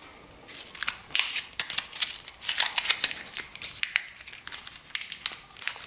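Foil pouch of Sugru mouldable glue being handled and torn open, crinkling and crackling in a run of short, sharp crinkles.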